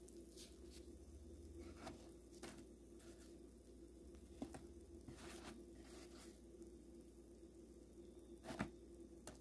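Faint, scattered crackles and rustles of crispy battered fried chicken skin pieces and paper towel being handled in a bowl, the loudest one near the end, over a steady low hum.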